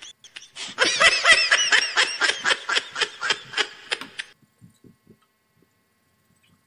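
A rapid, high-pitched giggling laugh lasting about three and a half seconds, which stops suddenly; a few faint clicks follow.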